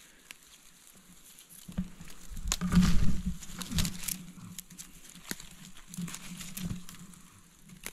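Rustling and crackling of dry dead fern stalks and leaf litter as hands push in among the ferns to pick fiddleheads, with scattered sharp snaps and low bumps. It starts after a quiet second and a half and is loudest around three seconds in.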